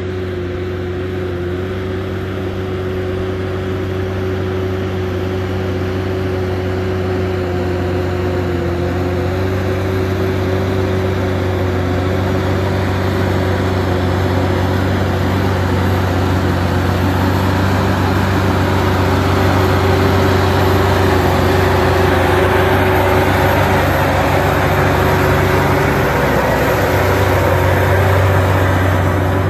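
Case IH Puma 230 CVX tractor's six-cylinder diesel engine running steadily under load, pulling a three-furrow plough through hard soil. It grows louder as the tractor comes close.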